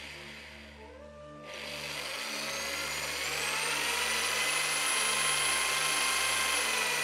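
Electric drill motor whirring as the bit bores into a small block, its whine rising in pitch over the first few seconds and then holding steady. Soft background music with a low steady tone plays underneath.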